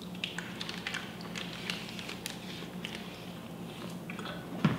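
Faint, irregular crinkles and ticks of a wet plastic bag being handled as a vacuum-sealed pork shoulder is lifted out of a sous vide water bath, over a low steady hum.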